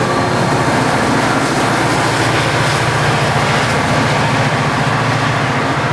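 A diesel-powered commuter train passing close by. The GP40FH-2 locomotive's engine runs with a steady low drone under the loud rush of the train.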